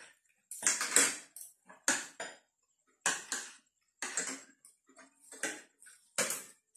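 Spoons and forks scraping and clinking on plates as several people eat. The sounds come short and separate, about one a second.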